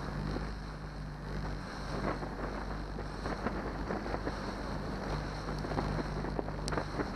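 Johnson 90 hp V4 outboard motor running steadily as a low hum while the boat's hull slaps through choppy water, with wind buffeting the microphone.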